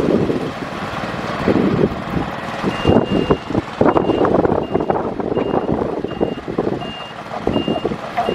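Heavy earthmoving machine running with clanks and knocks, its reversing alarm starting about three seconds in and beeping steadily at a single pitch, roughly once every half second.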